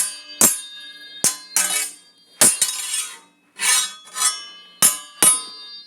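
Sword fight sound effect: metal blades clashing, about ten ringing clangs in quick irregular succession, a few of them with a longer scraping slide of blade on blade.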